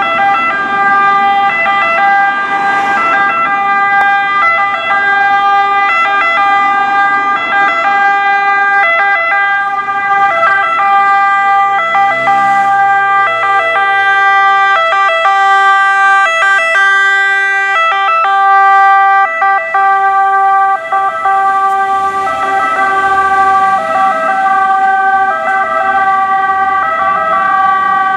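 Two-tone siren of an Italian fire service MAN TGS 18.320 water tanker, sounding loudly and steadily as the truck drives past, its pitch switching back and forth between two notes in a regular hi-lo pattern.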